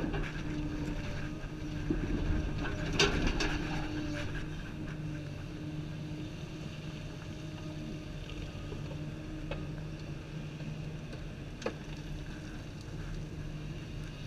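Komatsu 350 hydraulic excavator's diesel engine running steadily under load, heard from inside the cab as the machine digs and swings. A cluster of knocks and clanks about three seconds in, and two single sharp clicks later.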